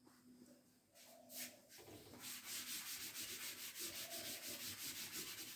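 A blackboard eraser rubbed back and forth across the chalkboard in quick, even strokes, about four to five a second, wiping off chalk writing. The rubbing starts about two seconds in.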